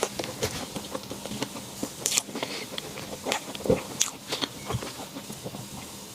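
A person biting and chewing a dessert, with irregular short crunches and clicks.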